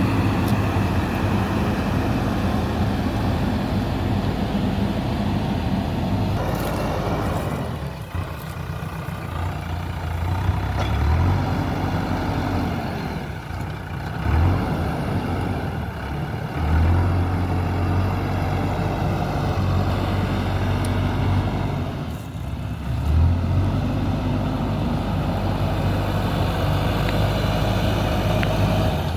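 JCB 3DX backhoe loader's diesel engine running, revving up in sharp rises of pitch several times and easing back in between.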